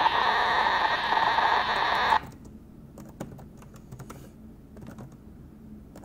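Raw bytes of a Linux kernel file played as audio through aplay: a loud, dense stream of digital noise with steady tones in it, which cuts off abruptly about two seconds in. Faint clicks of computer keyboard typing follow.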